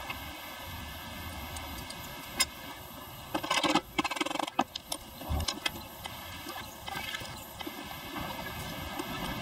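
Hammer tapping on the wooden handle of a hand drill: a quick run of knocks about three and a half seconds in, the loudest part, with a single sharp tap shortly before and a few lighter knocks and handling sounds after.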